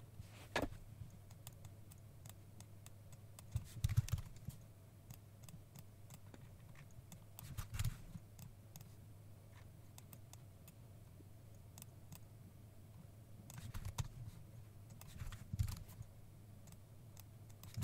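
Computer keyboard typing and mouse clicks in a few short scattered bursts, over a faint steady low hum.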